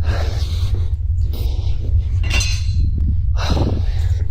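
Irregular clattering and clinking noises over a steady low rumble.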